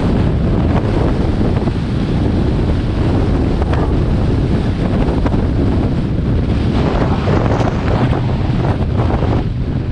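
Loud, steady wind buffeting the microphone of a camera mounted on a motorcycle riding a gravel track, a dense rumble with no clear engine note standing out.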